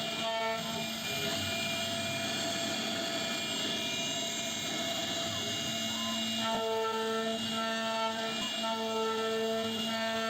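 CNC router spindle running steadily while carving wood, a constant whine with machine noise. From about two-thirds of the way in, a stronger pitched tone repeatedly starts and stops over it.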